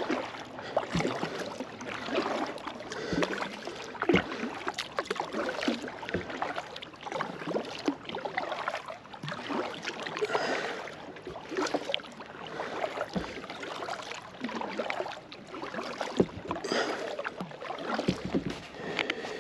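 Kayak paddling: paddle blades dipping and splashing in the water in an uneven rhythm, with several sharp knocks in between.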